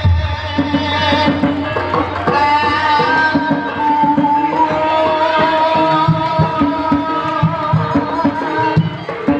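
Ebeg accompaniment music: kendang hand drums beating a busy rhythm under a melody held in long, wavering notes.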